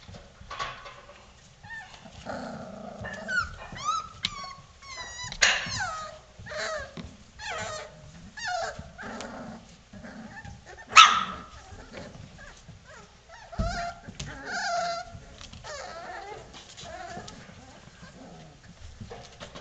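A litter of four-week-old Vizsla puppies yipping and whining as they play, with many short calls gliding up and down in pitch. One sharp, loud yelp comes about halfway through.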